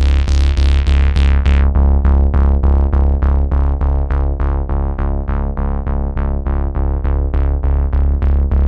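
Instrumental background music: quickly fading, piano-like synth notes repeated about four times a second over a steady, pulsing bass.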